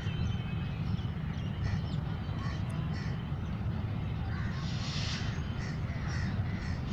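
Crows cawing repeatedly over a steady low rumble, with a brief hiss about five seconds in.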